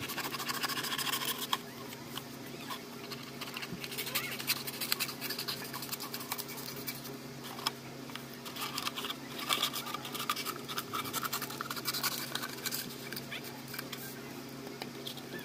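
Sheet of paper crackling and rustling as it is rolled and pressed around a tin can, with many small irregular crinkles, over a steady low hum.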